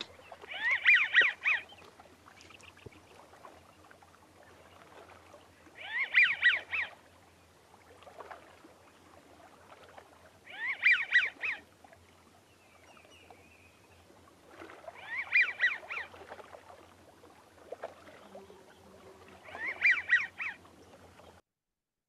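American wigeon calling: a light, wheezy whistled 'zew zew-zew' given in five short bouts, about four to five seconds apart.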